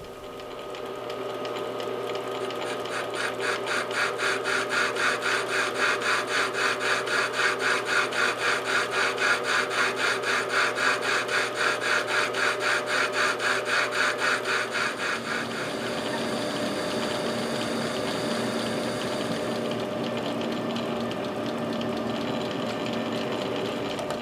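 Small metal lathe running with the steel end mill holder turning in its spindle, taking a light cleanup pass along the holder. The sound pulses regularly about three times a second at first, then settles to a steadier running hum about two-thirds of the way in.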